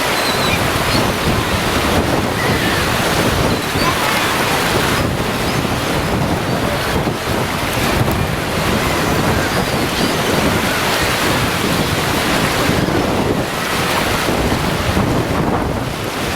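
Caspian Sea surf washing onto the beach, with steady wind buffeting the microphone.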